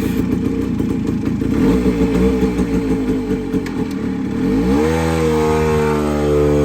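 Suzuki Samurai two-stroke motorcycle engine running and revving, loud and rough. About five seconds in, music with a rising glide takes over.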